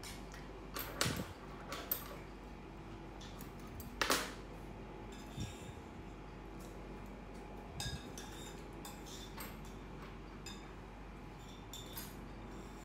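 Small metal scissors handled and snipping as crochet yarn is cut, with light clicks and taps on a table; the loudest tap comes about four seconds in.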